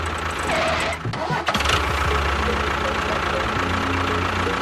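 A small motor running with a steady hum. It cuts out for about half a second a little after a second in, then starts again with a click and keeps running.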